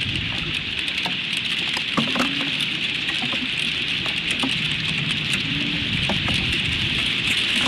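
A hail storm falls steadily on the nest and surrounding branches: a constant hiss, with many small ticks of hailstones striking. Under it, a male long-eared owl gives short, low hoots about every three seconds, hard to hear through the storm.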